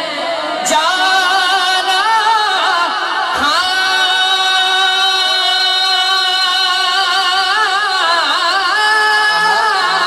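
A man singing a Punjabi naat into a microphone, unaccompanied, in long held notes with wavering, ornamented turns.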